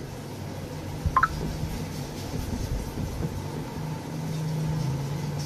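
Metal spoon scraping and clinking against a glass bowl as icing sugar is tipped out, with a couple of sharp clinks about a second in, over a steady low mechanical hum.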